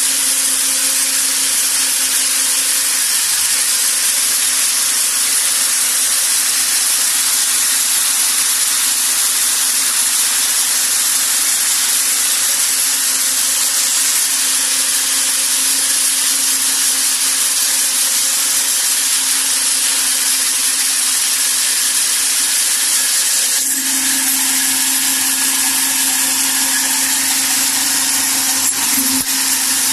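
Hazelnut bagging machine running steadily: a loud, even hiss over a constant hum. About 24 seconds in, the hum grows stronger and deeper.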